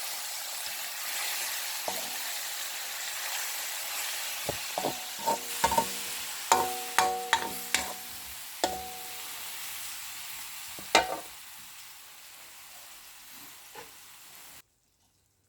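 Food sizzling in a hot pan, with a metal utensil striking and clinking against the pan a dozen or so times around the middle. The sizzle fades and then cuts off abruptly near the end.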